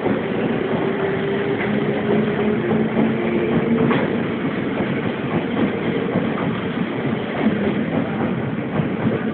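A passenger train pulling out of a station, running past with a steady rumble and a humming tone through the first half, with a few faint clicks of wheels over rail joints.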